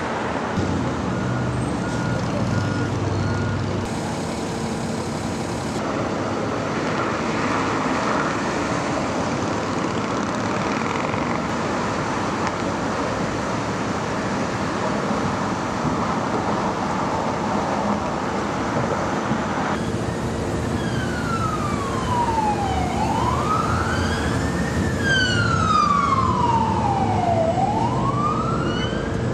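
Steady city traffic noise, joined about two-thirds of the way in by an emergency vehicle siren in a slow wail, sweeping down and up in pitch twice.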